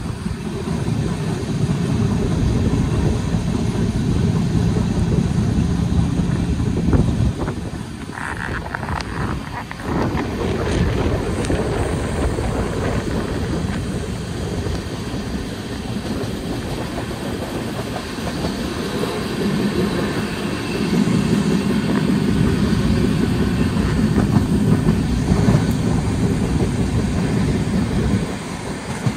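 A passenger express train running, heard from on board: a steady low rumble of wheels on the track with a few scattered clicks.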